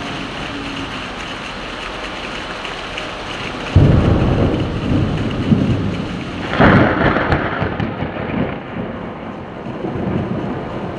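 Steady heavy rain, then a sudden thunderclap about four seconds in that rolls on as rumbling, with a second, sharper peal of thunder a few seconds later and low rumbling trailing off under the rain.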